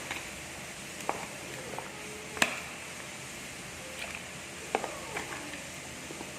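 Stone pestle knocking and scraping in a stone mortar (ulekan and cobek) while grinding a spice paste of shallots, garlic and turmeric: irregular sharp knocks with a short ring, the loudest about two and a half seconds in.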